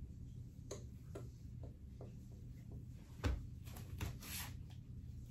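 Faint rustling of a cotton hoodie and scattered light knocks as a person moves and poses, with one soft thump about three seconds in, over a low steady room hum.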